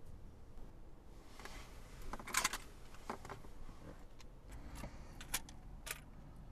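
Plastic blister pack of pills picked up from a cup holder and handled: a cluster of crinkly clicks about two seconds in, then a few single sharp clicks.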